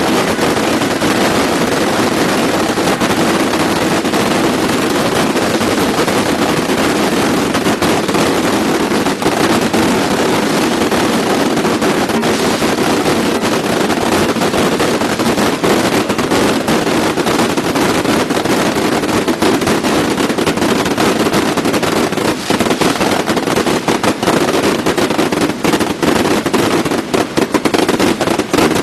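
A massed barrage of bottle rockets firing nonstop from a beehive launching rack: a dense, continuous rush of hissing and rapid cracking. In the last few seconds the cracks come more separately.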